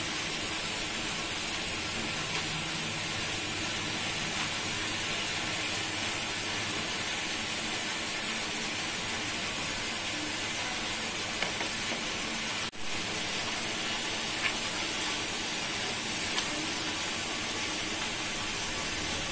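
Steady, even background hiss with no distinct events, broken by a brief dropout about two-thirds of the way in.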